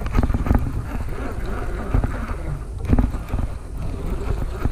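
Wind buffeting the microphone with a low rumble, mixed with irregular knocks, clicks and rustling from handling on a small boat.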